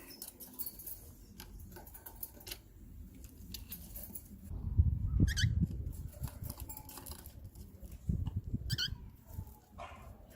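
Cockatiels scuffling and knocking about in a nest box: scattered clicks, low thumps about halfway through and again near the end, each with a short chirp.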